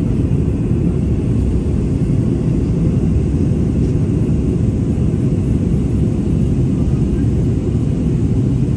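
Steady low rumble of an airliner cabin: engine and air noise heard from inside the passenger cabin.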